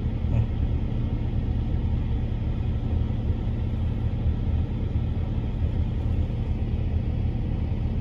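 Steady low rumble of engine and road noise from a vehicle driving at an even pace along a paved road.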